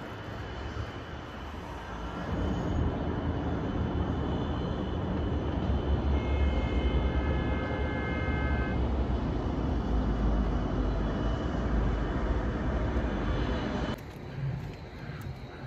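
Outdoor downtown city noise: a steady low rumble of traffic heard from high above the street. A high-pitched tone is held for about three seconds midway. The level drops suddenly near the end.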